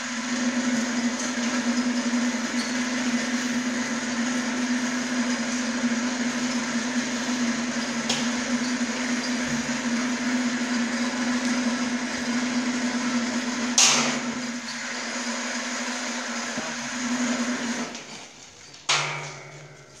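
Electric chain hoist motor running steadily as it lifts the inner pot of a carbonization furnace, a constant whining hum. There is a sharp knock about fourteen seconds in. The motor stops near the end, followed by another knock.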